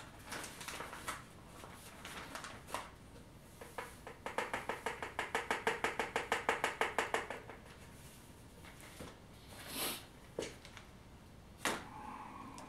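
A container of green turf scenery being shaken in a quick, even rhythm, about seven taps a second for some three seconds, to sprinkle it onto the layout. A few single clicks and knocks come before and after.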